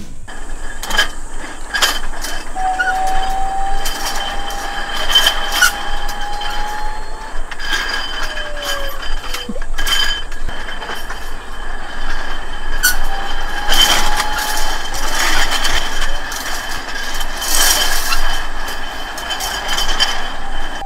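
Steel roller slide rattling as a small robot rides down it: the rollers clatter and click continuously, with a steady high whine and a few drawn-out squeals.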